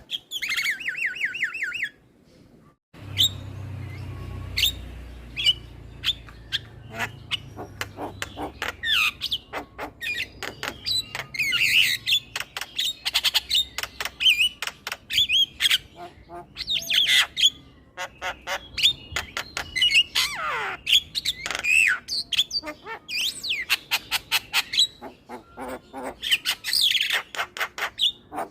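Male Javan myna (jalak kebo) chattering: a rapid, varied run of harsh squawks, clicks and whistled notes. The song breaks off briefly about two seconds in and then goes on with a faint low rumble underneath.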